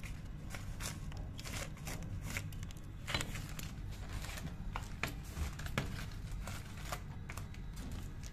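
Light, irregular clicks and clinks of steel parts as a pump's cartridge mechanical seal is worked apart by hand, over a steady low hum.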